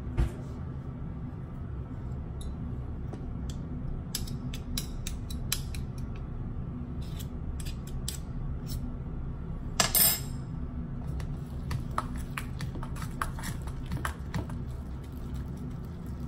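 Metal fork clicking and scraping against a stainless steel mixing bowl while stirring a thick flour-and-apple-cider-vinegar paste for a sourdough starter, with a louder clatter about ten seconds in. A steady low hum runs underneath.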